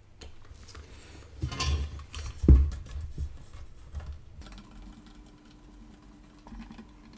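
Hands handling a metal ATX power-supply casing: scattered rustles and small clicks, with one loud knock about two and a half seconds in. Then faint scraping as a screwdriver turns a small screw in the sheet-metal back plate.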